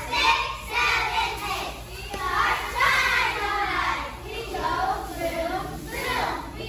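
Young girls' voices chanting a cheer together in short phrases with brief breaks.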